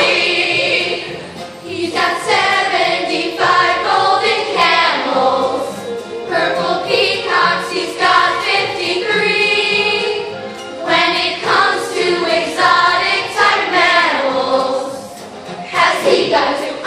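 A chorus of children singing a musical-theatre number together, with a long held note in the middle.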